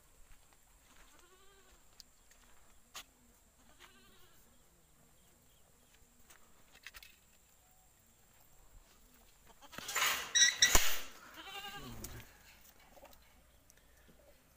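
Goats bleating: a few faint calls early, then louder bleating about ten seconds in, broken by a sharp knock, with a falling call after it.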